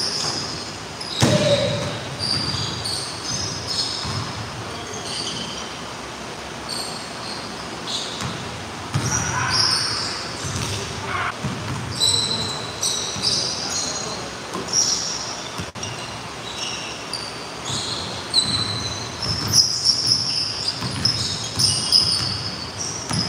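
Basketballs bouncing on a hardwood gym floor, with sneakers squeaking in many short high-pitched chirps, echoing in a large gym. The loudest is a thud about a second in.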